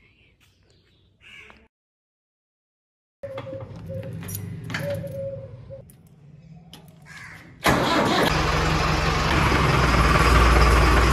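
Tractor engines running with clicks and clatter after a brief dead silence. About two-thirds of the way in, they suddenly get much louder and stay loud, with a heavy low rumble.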